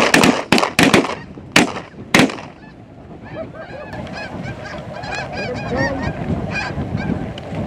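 A rapid volley of about seven shotgun blasts in the first two seconds or so, followed by a flock of snow geese calling, a dense chorus of high, yelping honks that grows toward the end.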